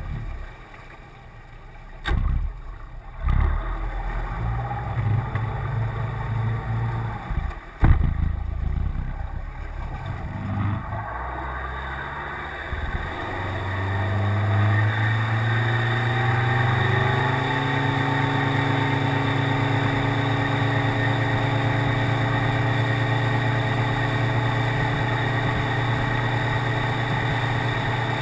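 Yamaha F50 four-stroke, four-cylinder 50 hp outboard running at low speed, with a few sharp knocks in the first eight seconds. About twelve seconds in it is throttled up, its pitch rising for several seconds, then it runs steadily at the higher speed.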